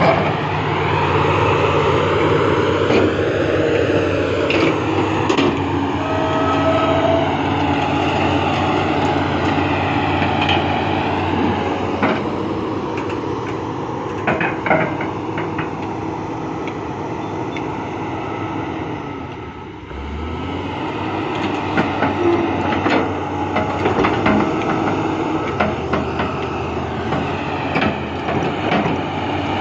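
XCMG XE370CA excavator's diesel engine running under load with its hydraulics whining, the whine rising and falling as the boom and bucket move, and scattered metal clanks from the bucket and linkage while it digs and dumps sand. The engine eases off briefly about two-thirds of the way through, then picks up again.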